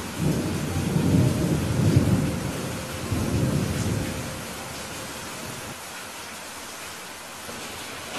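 Steady rain hiss with a low rolling rumble of thunder that swells and ebbs through the first four seconds, then fades, leaving only the rain.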